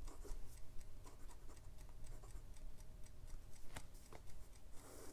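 Fine steel nib of a Jinhao x159 fountain pen writing on Clairefontaine 90 gsm paper: faint, irregular scratching and light ticks as the nib strokes and lifts, with one sharper tick a little past the middle.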